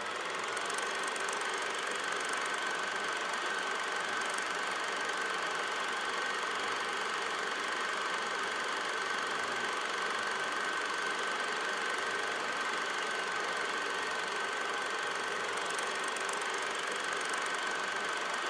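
Steady mechanical whirring with a constant high-pitched whine running through it, as from a small motor running.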